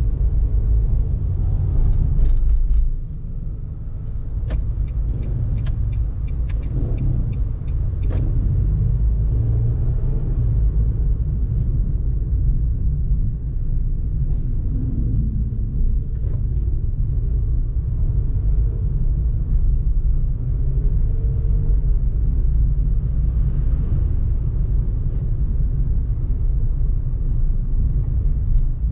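Low, steady rumble of road and engine noise heard inside a moving car. A few seconds in, a run of light ticks, about two a second, sounds over it for a few seconds.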